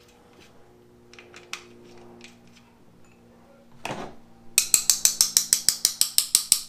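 Hand ratchet wrench clicking rapidly and evenly, about eight clicks a second, starting about four and a half seconds in, as bolts on a transmission case are run down. Before that, a few light scattered clicks and taps of parts being handled.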